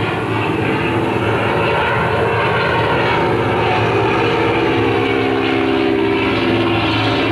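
Piston aircraft engine running steadily with its propeller, a continuous deep drone; a higher steady tone joins in about halfway through.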